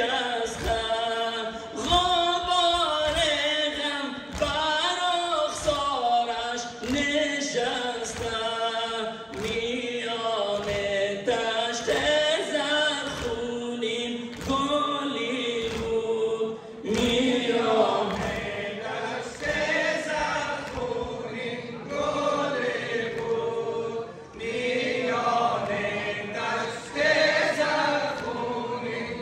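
A group of men chanting a Shia mourning lament (noha) together, line after line, over a steady rhythm of thumps from the chest-beating (sineh-zani) that goes with it.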